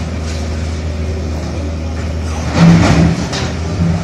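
Heavy diesel engines of demolition machinery and a truck running steadily, with a louder burst of noise about two and a half seconds in that lasts around half a second.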